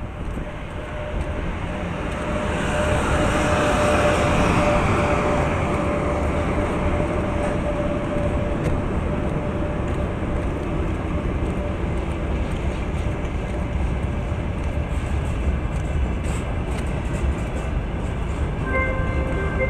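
Train noise at a railway station: a steady rumble with a thin whine that swells a few seconds in and then settles. Near the end, a station public-address chime sounds.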